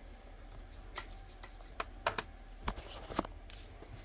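Hands handling a cardboard coin album: a handful of light, scattered taps and clicks over a faint low hum.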